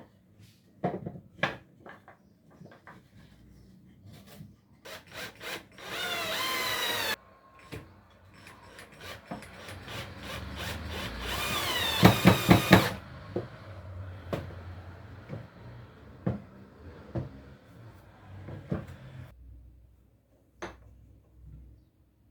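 A power drill runs in two short bursts, about a second each, the second louder and pulsing near its end, between knocks and clatter of wood being handled on the bench.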